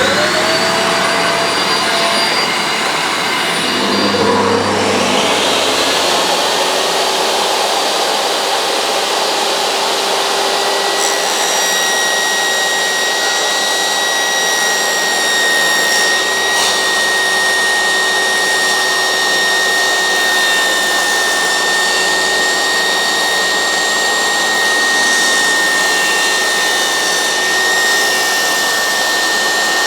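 Workshop power machinery running: a motor spins up at the start and then runs steadily with a rushing, vacuum-like noise. A second steady whine joins a few seconds in, typical of a saw running with its dust extraction while strips are cut.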